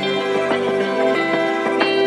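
Instrumental background music with held notes.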